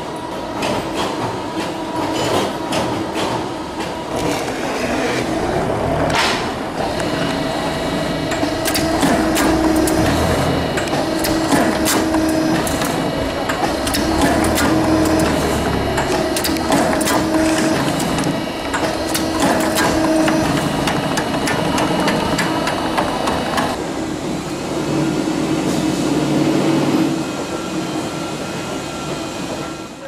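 Automatic double-mold buckle machine for plywood boxes running: its punch dies stamp and press buckles, making rapid clattering and clicking over a steady machine hum. The hum drops away about four-fifths of the way through while the clicking goes on.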